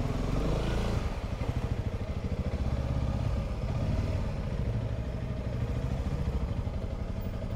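Honda CRF300 Rally's single-cylinder engine running at low revs with a steady, even low beat as the motorcycle rolls slowly along.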